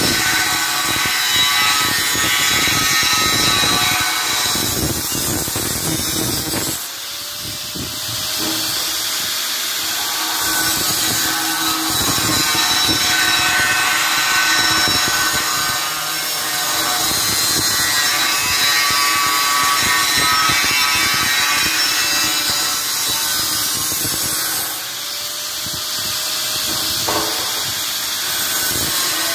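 Angle grinder with an abrasive cut-off disc cutting through 1.6 mm-wall steel box-section tube: a steady, loud grinding whine over dense noise. The load eases briefly twice, about seven seconds in and again near the twenty-five second mark, and each time the motor's pitch climbs back up.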